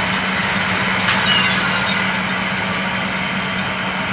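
Tractor engine running steadily while powering a John Deere 467 round baler, with a light knock about a second in.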